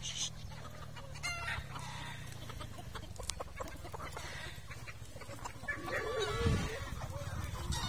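A flock of free-ranging hens and roosters clucking and calling in scattered short calls, with a louder drawn-out call about six seconds in, over a low steady rumble.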